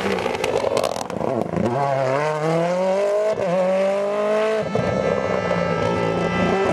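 Mini John Cooper Works WRC rally car's 1.6-litre turbocharged four-cylinder accelerating hard. Its note rises through one gear, drops briefly at an upshift about halfway through, rises again, then changes abruptly to a steadier, lower note about two-thirds of the way in.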